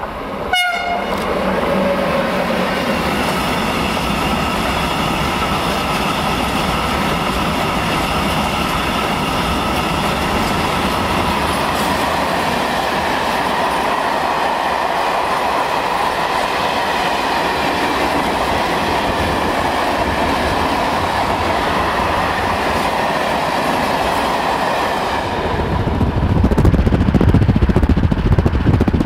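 An OSE class 120 electric locomotive gives a brief horn blast that drops in pitch as it passes. Then its long freight train of open wagons rolls by with steady wheel rumble and clatter, and a few faint steady tones ride over the noise. About 25 seconds in the sound switches abruptly to a louder, lower rumble of a moving road vehicle.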